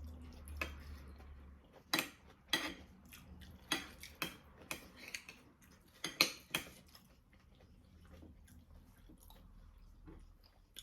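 Clinks and taps of dishes and eating utensils during a meal: a scattering of short, sharp clicks, with the loudest ones about two, four and six seconds in.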